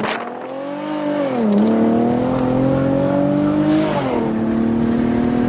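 Car engine accelerating through the gears: its pitch climbs, drops at an upshift about a second and a half in, climbs again, and drops at a second upshift about four seconds in before settling.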